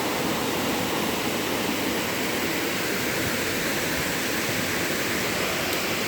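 Steady rush of falling water from a waterfall, an even hiss with no breaks or changes.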